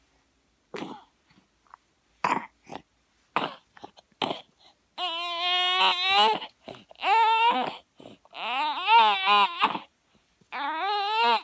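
A baby sick with RSV gives a run of short, rough coughs. From about five seconds in it breaks into high-pitched crying in several bouts.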